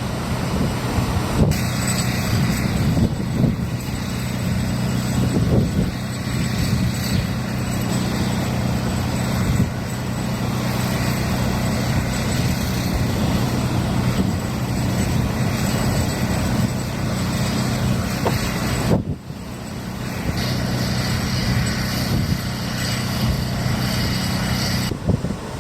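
Hurricane-force wind rushing over the microphone, with surf, and a steady low drone underneath; the sound breaks off briefly a couple of times.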